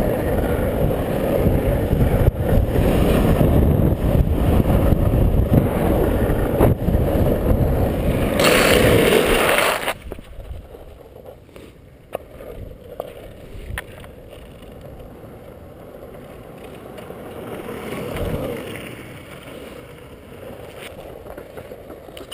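Longboard wheels rolling fast on asphalt, heard from a helmet-mounted camera: a loud rumbling rush that swells just before it drops off sharply about ten seconds in. After that the roll is much quieter, with scattered clicks.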